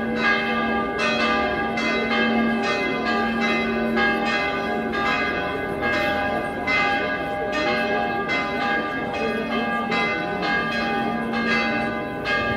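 Church bells ringing in the bell tower, several bells struck in a steady pattern about twice a second so their tones overlap and hum on.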